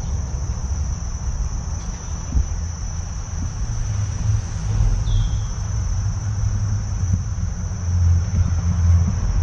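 A steady, unbroken high-pitched insect drone over a low, uneven rumble that swells near the end, with one brief chirp in the middle.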